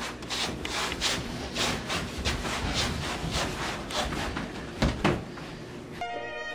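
Rhythmic back-and-forth rubbing strokes on a wooden floor, about three a second. A violin melody comes in near the end.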